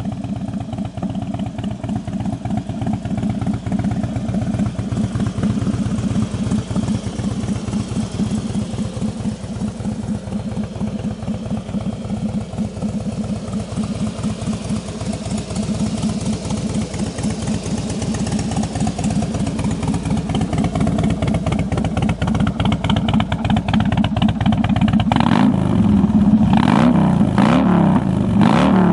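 Harley-Davidson Heritage Springer V-twin idling through its aftermarket Vance & Hines exhaust with a rapid, even pulse. Near the end the throttle is blipped several times in quick succession, each rev rising and dropping back to idle.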